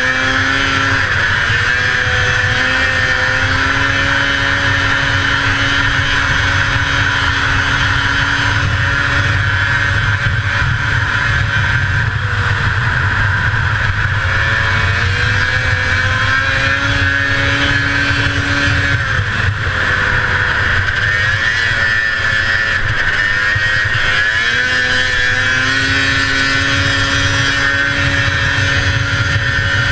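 1981 Arctic Cat El Tigre 6000 snowmobile's 500cc two-stroke engine running hard at racing speed. Its pitch climbs and holds several times as the throttle is opened, easing off briefly about two-thirds of the way through, over a constant rush of wind and track noise.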